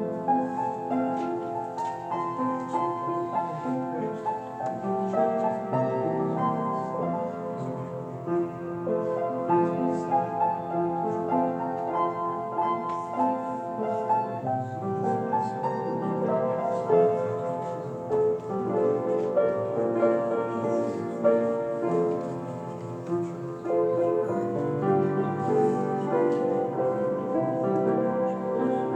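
Solo piano playing a slow, quiet meditative piece.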